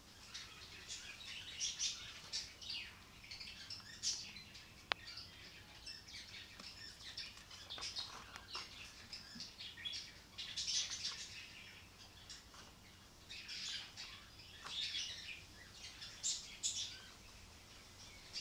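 Small birds chirping in short, irregular calls throughout, with a single sharp click about five seconds in.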